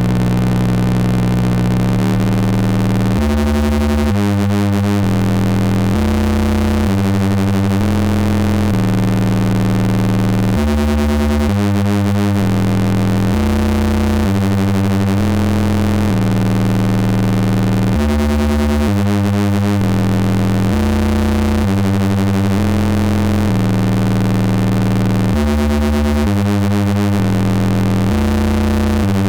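Square-wave oscillators of a Jupiter Storm–style eurorack noise module making harsh, clashing synth noise. A steady buzzing drone holds for about two seconds, then the timbre switches in a stepped pattern that repeats about every seven seconds.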